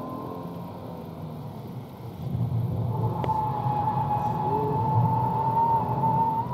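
Mercedes C-Class's 3.5-litre V6 engine running hard, heard from inside the cabin, getting louder about two seconds in as the car is driven into a drift. From about three seconds in, the rear tyres squeal with a steady high tone as they spin and slide.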